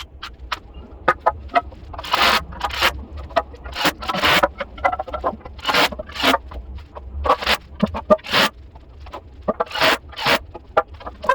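Irregular scraping strokes and clicks of wood being worked by hand, each stroke a fraction of a second long, over a low steady hum.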